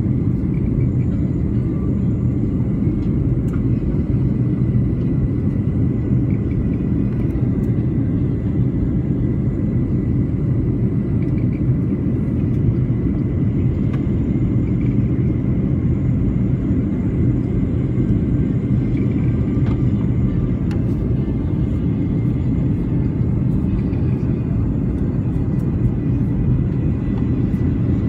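Steady rumble of engine and airflow noise inside the cabin of a Boeing 737 airliner in flight, with a faint, steady high whine above it.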